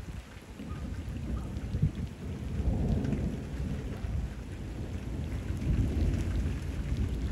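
Thunder rumbling low and long, swelling about two and a half seconds in, over steady rain pattering on canal water.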